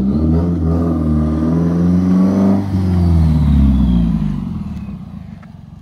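Subaru WRX's turbocharged flat-four accelerating hard past, its exhaust note rising in pitch, dropping at a gear change about two and a half seconds in, rising again, then fading as the car drives away.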